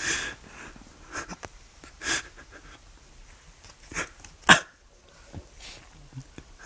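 A young man sobbing: short gasping breaths and sniffles about every second, the sharpest gasp about four and a half seconds in.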